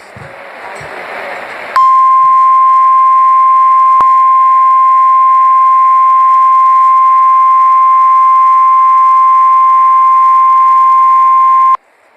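NOAA Weather Radio 1050 Hz warning alarm tone: a single steady, loud beep held for about ten seconds, then cut off suddenly. It signals that a weather warning broadcast follows. Radio hiss rises in the first two seconds before the tone starts.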